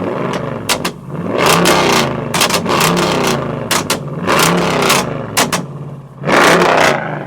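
Car engine revved hard in a series of quick throttle blips, about four main revs rising and falling in pitch, with sharp cracks from the exhaust between revs.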